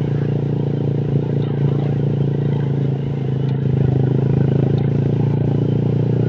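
Honda Vario scooter with a tuned-up KZR engine and a 55 mm piston, running steadily at cruising speed with a steady engine and exhaust note, getting a little louder about three and a half seconds in.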